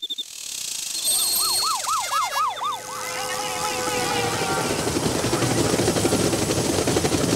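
Warbling siren of a race escort vehicle, rising and falling about three times a second. Then a loud, building rush of noise as the pack of racing cyclists sweeps past.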